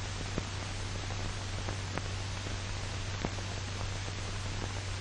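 Steady hiss and low hum of an old optical film soundtrack, with a few scattered soft clicks.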